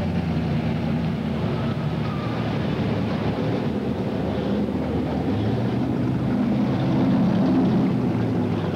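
Hot rod engine running at low speed as the car cruises slowly past, a steady low note that grows a little louder near the end.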